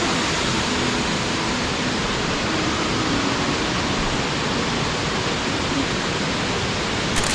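Amicalola Falls rushing steadily up close: an even, unbroken roar of falling water.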